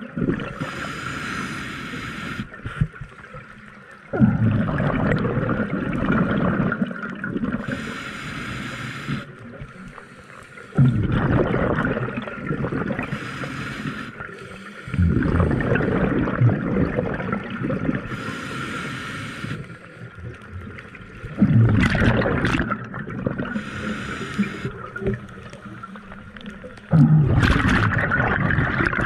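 Scuba diver breathing through a regulator underwater: a short hiss on each inhale, then a loud rush of exhaled bubbles gurgling away, repeating about every five to six seconds.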